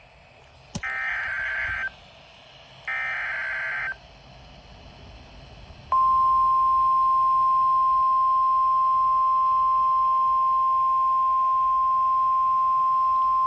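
NOAA Weather Radio Emergency Alert System header: two short bursts of buzzing digital data tones, each about a second long and two seconds apart. About six seconds in, the long, steady, single-pitch warning alarm tone starts and holds. It signals a National Weather Service coastal flood warning about to be read.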